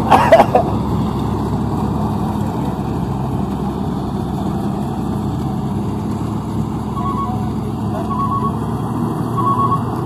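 Maxxi Corn Type G combine harvester running steadily while harvesting rice. From about seven seconds in, a short cluster of electronic beeps repeats roughly every second and a half.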